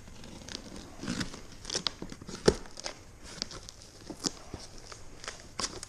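A knife slitting the packing tape on a cardboard shipping box, then the box's cardboard flaps being handled: irregular crackles, scrapes and sharp clicks, the loudest about two and a half seconds in.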